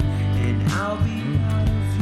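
Background music with guitar, held notes over a steady bass line.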